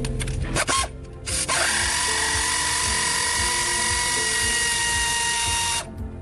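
A few sharp clicks, then a handheld power tool's motor whirring steadily for about four seconds, dropping slightly in pitch before it stops abruptly.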